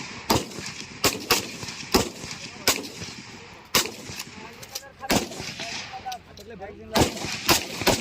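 7.62 mm SLR self-loading rifles firing single shots, several shooters at once: about ten sharp cracks at uneven spacing, each with a short ringing echo, a few coming close together near the end.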